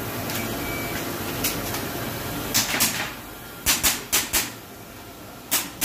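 Airsoft gas pistol shots: a string of sharp snaps, mostly fired in quick pairs, starting about a second and a half in over a steady murmur of room noise.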